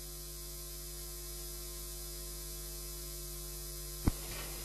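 Steady electrical mains hum and static on the audio feed, with a single sharp click about four seconds in.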